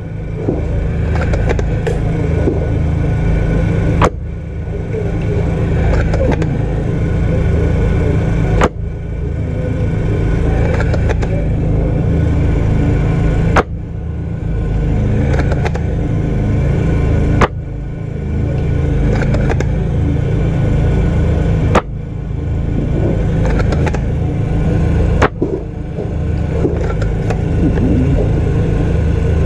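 Six sharp shots, about four to five seconds apart, from an upgraded Tokyo Marui VSR-10 spring bolt-action airsoft sniper rifle, fired one at a time between bolt cycles. A steady low rumble runs underneath.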